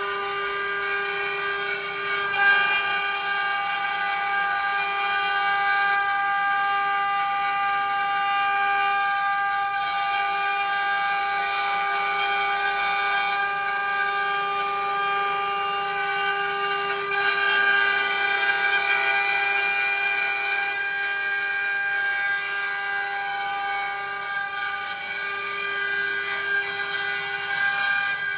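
Multi-head 4-axis CNC wood router running, its row of spindles whining at a steady high pitch with overtones as they carve spiral balusters from wood blanks turning on rotary axes.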